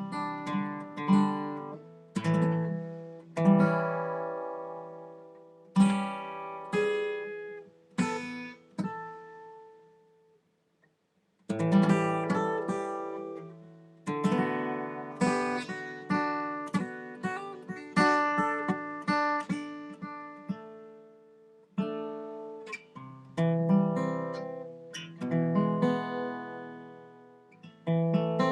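Guitar played without singing: chords struck and left to ring out, a pause of about two seconds where the sound dies away roughly ten seconds in, then quicker strumming.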